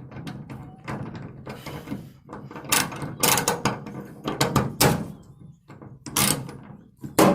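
A steel impact socket being fitted onto an extension on a 3/4-inch drive torque wrench: a run of irregular metal clinks and clunks, the loudest about three to five seconds in and again near the end.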